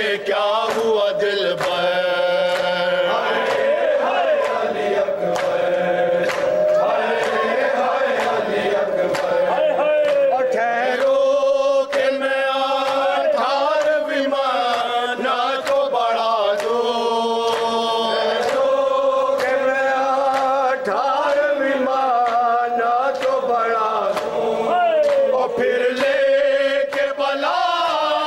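Several men chanting an Urdu noha (Shia lament) together, the lead voices wavering and pleading, over a steady beat of sharp slaps from hands striking their chests (matam).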